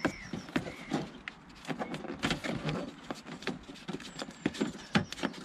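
Plastic door vapour barrier being peeled back off its sticky black sealant and handled: an irregular run of crackles and sharp clicks.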